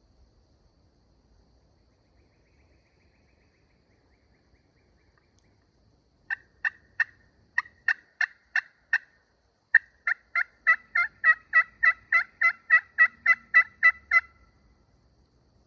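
Turkey yelping, close and loud: about eight evenly spaced yelps, a short pause, then a faster run of about seventeen notes at roughly four a second.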